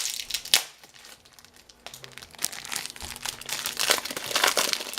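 Plastic packaging of a pack of card sleeves being torn open and handled, crinkling and rustling. There is a sharp tearing crackle about half a second in, then a quieter spell, and the crinkling gets busier again near the end.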